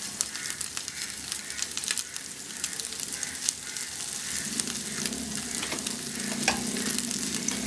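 Chicken pieces sizzling with a steady crackle in a nonstick frying pan, the cooking water boiled off so they now fry in the oil, with one sharper pop near the end.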